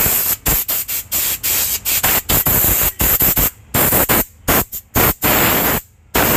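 Hand-held steam gun of a mobile steam-washing unit hissing as it blasts steam onto a car's floor carpet, in quick, irregular bursts with brief gaps between them.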